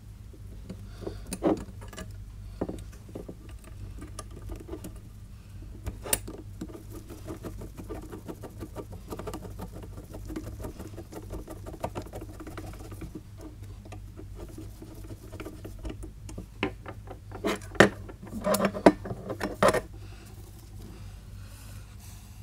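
Fiberglass heat wrap being wound by hand around a KTM 690 Duke exhaust downpipe: scratchy rustling and small taps of the pipe on the bench, with a run of fast fine clicks in the middle as a screwdriver works at the pipe's end, and a cluster of louder knocks and scrapes near the end.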